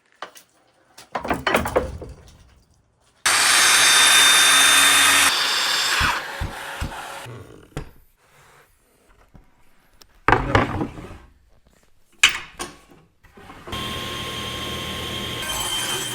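A run of short, separate sawing and power-tool sounds. Brief sawing bursts come about a second in, then a loud steady power-saw run of about two seconds, two more sharp bursts later on, and a steady machine running through the last couple of seconds.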